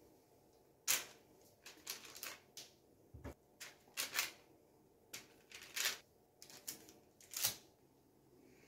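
Baking parchment crinkling in a string of short crackles as raw salmon portions are set down on a lined baking tray, with one soft thud about three seconds in.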